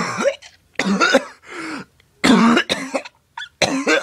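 A man coughing and gagging in about six short, loud fits with brief pauses between them, a reaction to an overpowering stench.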